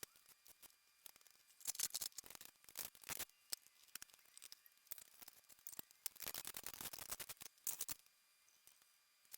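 Metal hand tools and engine parts clinking and rattling: irregular flurries of sharp, light clicks, with a longer run of rapid clicking from about six to eight seconds in.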